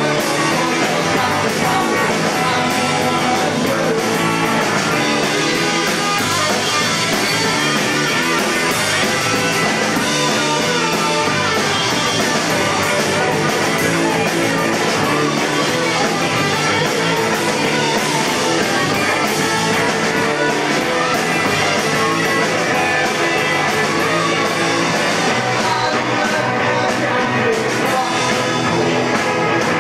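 Punk rock band playing live and loud: electric guitars over a full drum kit, with no breaks.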